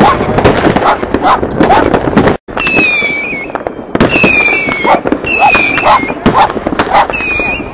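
New Year's fireworks going off all around: a dense crackle of bangs and pops. About two and a half seconds in, after a brief break, a run of about four short shrill whistles starts, each falling slightly in pitch, over the continuing bangs.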